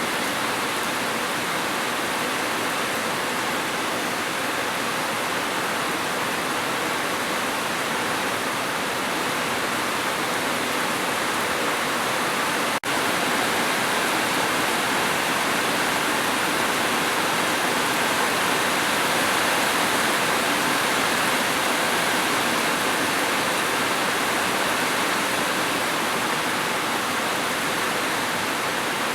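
Steady heavy rain, an even rushing hiss with no let-up, broken only by a momentary dropout about halfway through.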